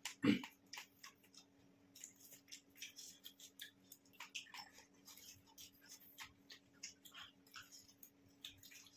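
Pani puri being eaten fast: crisp hollow puri shells cracked open and crunched, with wet slurping and mouth sounds, as irregular short crackles over a faint steady hum. A louder, deeper slurp or gulp comes about a third of a second in.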